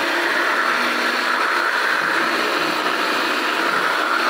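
Electric blender chopper running steadily at full speed, chopping chunks of raw peeled zucchini in its plastic bowl.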